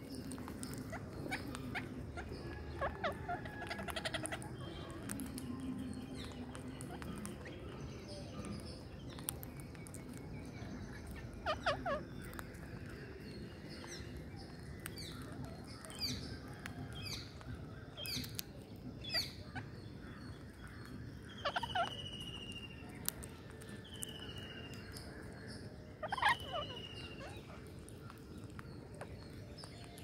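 Rose-ringed parakeets giving short, sharp high-pitched calls and screeches at irregular intervals, thickest in the middle, with a few falling notes near the end.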